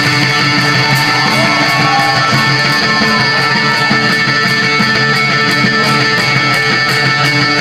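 A rock band playing live: loud distorted electric guitars over drums with a steady beat of crashing cymbals.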